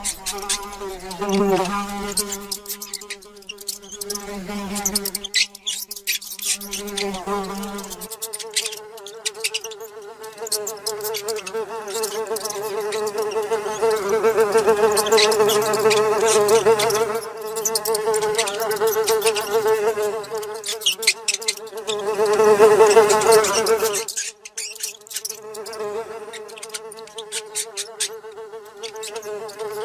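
A housefly buzzing: a continuous drone with a wavering pitch that swells louder twice and then eases off. Many short clicks are scattered throughout.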